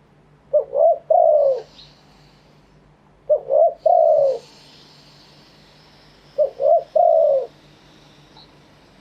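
Spotted dove cooing, three calls about three seconds apart. Each call is two short notes followed by a longer, falling coo.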